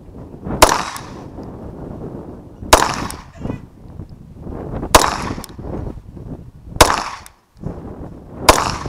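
Five 9mm shots from a Bersa Thunder 9 semi-automatic pistol, fired one at a time about two seconds apart.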